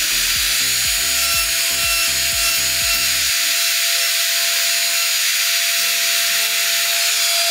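Electric nail drill with a cone bit filing down old gel on a fingernail: a steady rough, scratchy hiss with a constant thin motor whine. Background music plays underneath.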